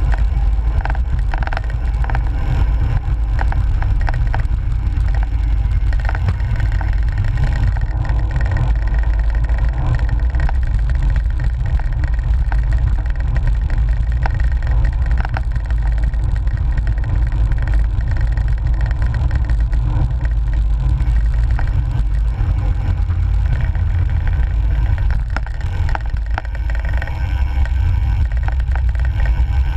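Wind rumbling over the microphone of a GoPro on a bicycle's handlebar mount while riding, with tyre rumble and small knocks and rattles from bumps coming through the mount.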